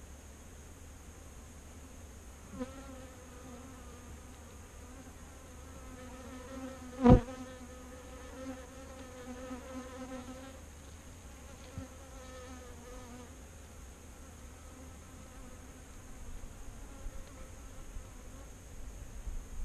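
Honeybees buzzing in flight close to the microphone, on and off. One passes very close about seven seconds in, the loudest moment.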